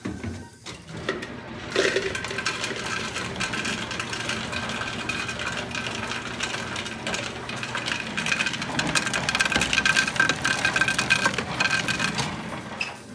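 Scotsman ice dispenser running: its motor whines steadily while ice clatters out of the chute into a container. It starts about two seconds in and cuts off shortly before the end.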